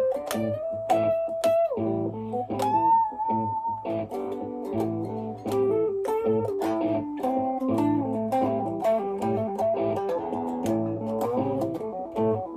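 Electric guitar playing single-note lead lines over a repeating looped backing of a low bass note and sharp rhythmic hits from a loop station. One note is bent upward about two and a half seconds in.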